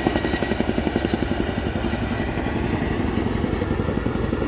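Boeing Chinook HC6 tandem-rotor helicopter flying past, its twin rotors beating in a rapid, steady thudding.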